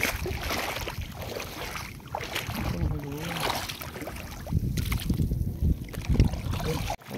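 Wind buffeting the microphone in gusts over shallow tidal water, with water sloshing and splashing.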